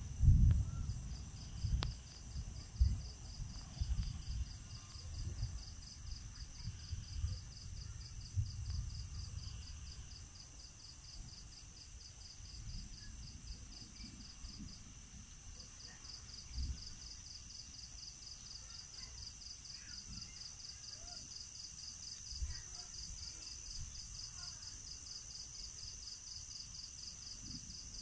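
Night insects chirping in a steady, rapidly pulsing high-pitched chorus. Irregular low rumbles and thumps come through in the first ten seconds, the loudest right at the start.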